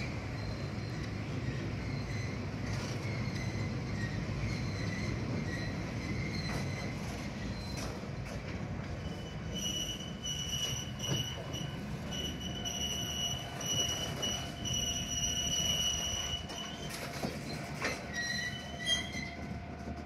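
Toyama Chihō Railway Deki 12021-class electric locomotive rolling slowly, its wheels squealing in high steady tones over a low rumble of wheels on rail. The squeal is faint at first and grows stronger and more piercing from about halfway, breaking off and on.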